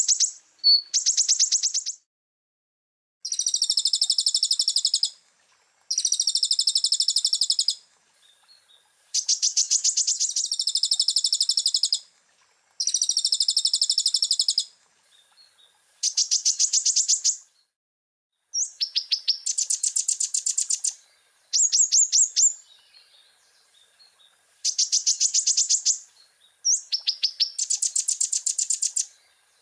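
Konin (kolibri ninja sunbird) song: fast, high, buzzy trills of rapidly repeated notes, delivered in phrases of about two seconds with short pauses between them, about nine phrases in all.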